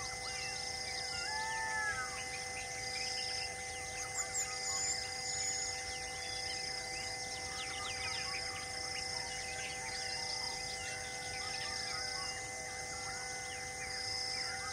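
Bird and insect ambience: several birds chirping and whistling in short calls, with a high buzzing call repeating about every second and a half, over a steady background drone.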